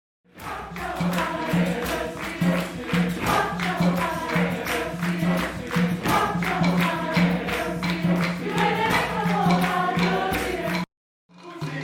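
Mixed chorus singing with percussion keeping a steady beat. The music cuts to silence for about half a second near the end, then another excerpt begins.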